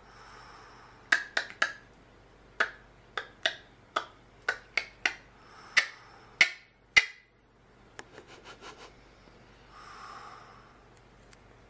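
A run of about thirteen sharp, separate clicks at an uneven pace over some six seconds, then a quick flurry of fainter ticks. A soft breathy noise comes at the start and again near the end.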